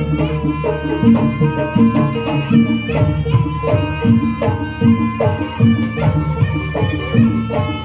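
Javanese jaranan (kuda kepang) accompaniment music: hand-drum strokes in a steady rhythm under a line of pitched melodic notes.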